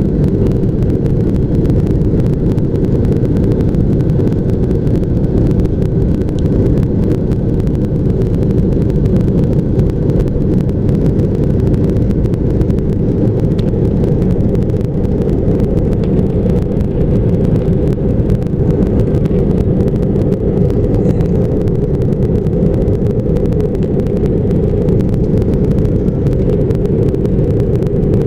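Aircraft engine noise heard inside the cabin: a loud, steady low drone that does not change.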